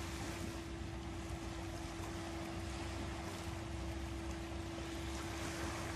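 Steady outdoor rush of wind and water with a low rumble and a constant low hum running under it, as heard over open water near the platform and its escort boat.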